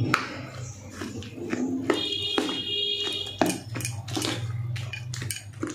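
Metal spoon stirring thick batter in a steel bowl, clinking and scraping against the bowl many times. A high-pitched steady tone sounds for about a second in the middle, over a low hum.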